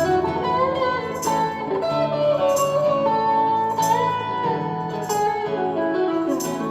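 Live band playing an instrumental break of a slow soul-country song: a lead guitar plays a melody with bent, sliding notes over bass, with a sharp drum or cymbal hit about every second and a quarter.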